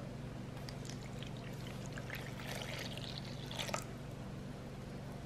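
Warm milk poured from a glass measuring cup into a mixing bowl: a faint splashing trickle lasting about three seconds, after a short tap at the start, over a low steady hum.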